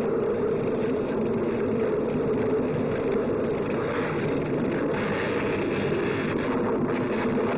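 Old film soundtrack of a storm and electrical laboratory machinery: a steady, dense rushing noise with no distinct thunderclaps or knocks.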